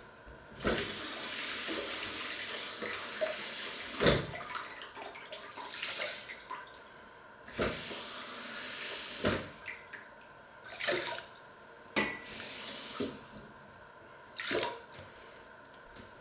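Kitchen tap running at the sink in one longer stream and then several short bursts as a cup is filled, with a few sharp knocks of the cup against the sink in between.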